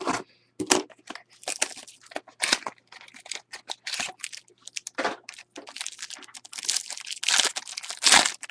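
A Topps Museum Collection baseball card pack being torn open by hand: its cardboard and foil wrapping crinkling and tearing in a run of irregular rustling bursts, loudest near the end.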